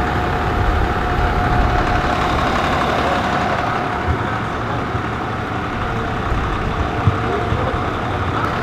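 Heavy diesel engines of parked fire apparatus and an ambulance idling, a steady low rumble with a faint steady whine over the first few seconds.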